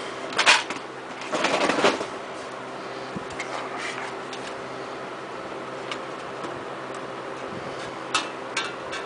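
Sheet-metal box fan housing being handled and turned over by hand: a sharp knock about half a second in, a longer scrape within the first two seconds, then scattered light clicks and taps as the motor bracket is worked on, over a steady low hum.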